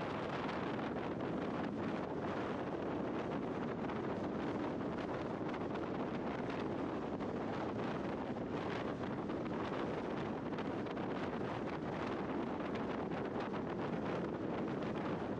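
Steady wind noise rushing over the microphone of a scooter moving at road speed, with no engine note heard.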